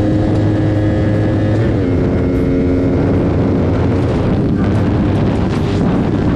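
Yamaha YZF-R3's parallel-twin engine running hard at highway speed, under heavy wind rush. About two seconds in, the engine note steps down in pitch as in an upshift. Near the end the engine note fades under the wind as the throttle eases.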